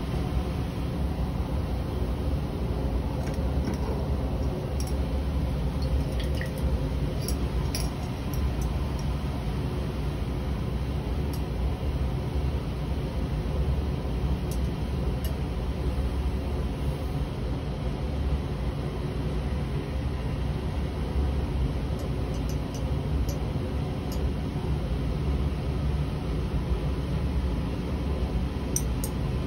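Vacuum filtration: liquid dripping through a Büchner funnel into a glass filter flask, with scattered small glass clinks and drips, over a steady low machine hum.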